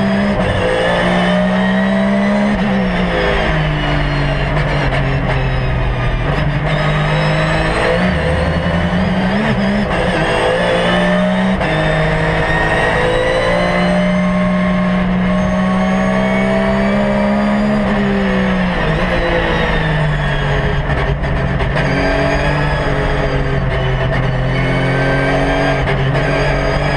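Porsche 911 GT3 R's naturally aspirated flat-six race engine heard from inside the cockpit, running hard under load through the gears. Its pitch rises and falls with several gear changes and lifts.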